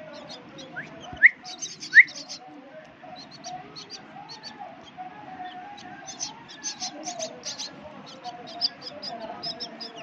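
Myna chicks begging for food: a steady run of short, high chirps all through. Two loud, brief rising whistles come about a second and two seconds in.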